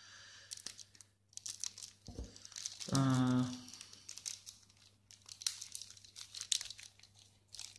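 Plastic shrink-wrap on a sealed card deck crinkling and crackling as it is worked at to get it open. A short hummed vocal sound comes about three seconds in.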